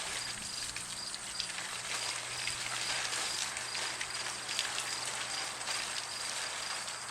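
Garden hose spraying water onto a slime-covered person and their clothes: a steady hiss of spray with fine splattering throughout, over a faint low hum.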